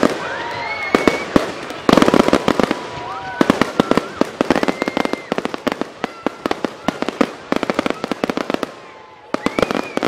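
Fireworks display: shells bursting into fast flurries of crackling bangs. The crackling thins out near the end, then a fresh cluster of bursts follows.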